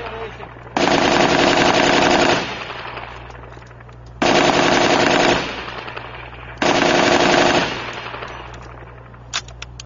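Machine gun firing three long bursts of automatic fire, each lasting one to one and a half seconds, with the echo rolling away after each burst. A few sharp clicks come near the end.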